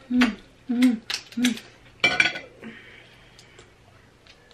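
Three short hummed sounds from someone eating, each falling in pitch, then a brief sharp crack about two seconds in as snow crab legs are cracked and peeled.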